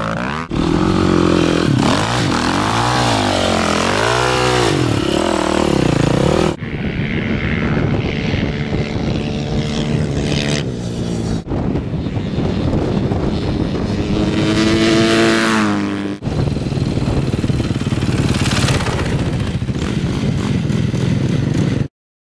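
Motocross bike engines revving up and down, in several segments that change abruptly, as between edited clips; the sound cuts off suddenly near the end.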